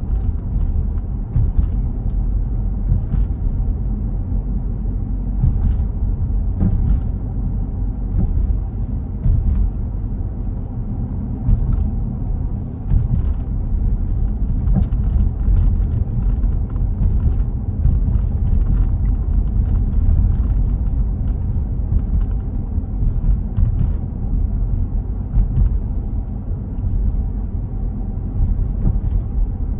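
Car driving along a street, heard from inside the cabin: a steady low road-and-engine rumble, with scattered light ticks and knocks throughout.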